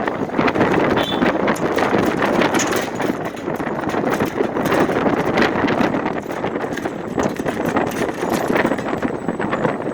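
A sign shaking in gale-force wind, rattling and clattering rapidly against its fittings in a fast, irregular run of knocks, over a steady rush of wind.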